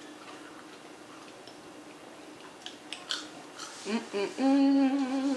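A few crisp crunches of someone biting and chewing crispy fried food, then, about four seconds in, a long steady hummed "mmm" of enjoyment that is the loudest sound.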